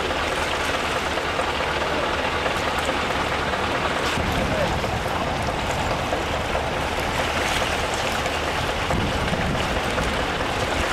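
Steady rushing and splashing of water over the low hum of a running engine, the sound of rescue-service pumps at work.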